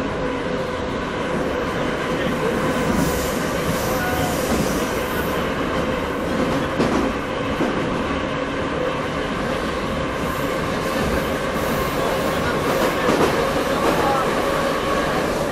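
Moscow Metro train running between stations, heard from inside the carriage: a steady rumble and rattle with a constant whine, and brief high squeals and clicks from the wheels on the track.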